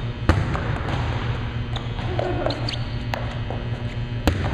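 A volleyball smacks sharply off a player's hands twice as she sets it, about four seconds apart, with short sneaker squeaks on the court in between and a steady low hum underneath.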